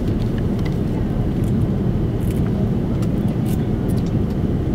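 Steady low rumble of engine and airflow noise inside an Airbus A330-300's rear cabin on the landing approach, with faint scattered clicks and rattles from the cabin fittings.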